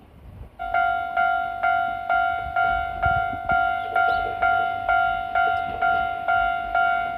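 Japanese railway level crossing alarm starts about half a second in. It rings an electronic bell tone about twice a second, evenly repeated, warning of the approaching train. A faint low rumble runs beneath it.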